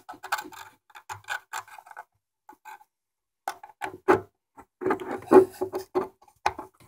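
Fingers fumbling a DC barrel plug into the power jack of a Lepai LP-A68 amplifier: a run of clicks, scrapes and rubs, with a pause of about a second and a half in the middle.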